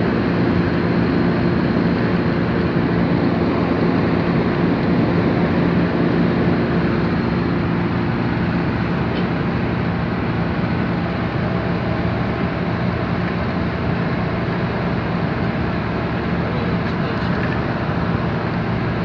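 Steady engine hum and road rush inside a moving vehicle's cabin while driving. The low engine tones ease off slightly about eight seconds in.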